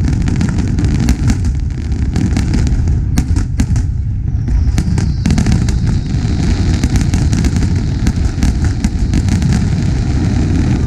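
Fireworks grand finale: a dense, continuous barrage of bangs and crackling over a heavy low rumble, with a faint whistle about halfway through.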